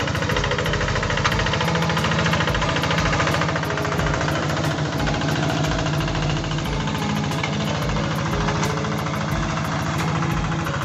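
Single-cylinder diesel engine of a Quick G3000 Zeva two-wheel hand tractor running steadily under load as it pulls a plough through dry soil, with a fast, even knocking beat.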